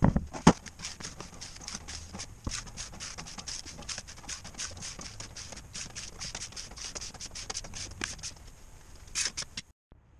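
Two sharp knocks, then a quick, irregular run of light metallic clicks and scrapes from hand work on a JATCO JR403E automatic transmission and its parts on a steel workbench. The sound cuts off abruptly near the end.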